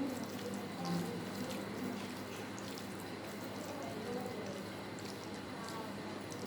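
Wet, close-up eating sounds of rice and curry: small squishy smacks and clicks scattered throughout, over a steady background hiss and faint low hum.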